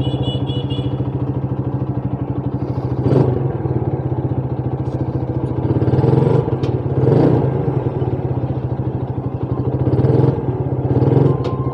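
Motorcycle engine idling with a fast, even pulse, swelling briefly a few times.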